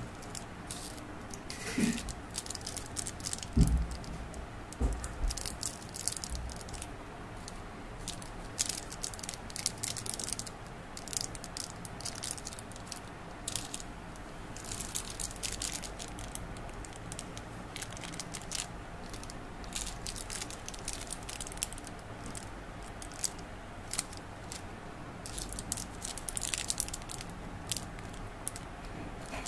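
Plastic candy wrappers crinkling in irregular short rustles as individually wrapped jelly candies are handled and set down on a cloth mat, with a few soft knocks in the first five seconds.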